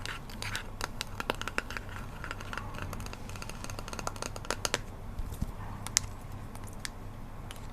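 Rapid small clicks and taps from objects handled close to the microphone, dense for about five seconds, then sparser, with one sharp click about six seconds in. A low steady hum runs underneath.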